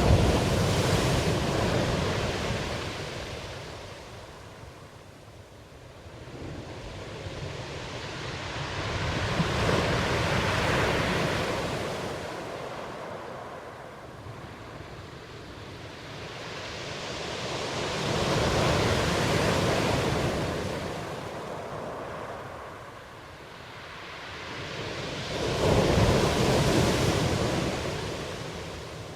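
Ocean surf: waves washing in and drawing back in slow swells, four surges that rise and fade about every eight or nine seconds.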